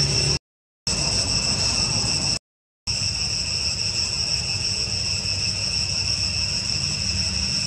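Steady high-pitched insect chorus, several shrill pitches held evenly together, over a low rumble. The sound cuts out to silence twice for about half a second in the first three seconds.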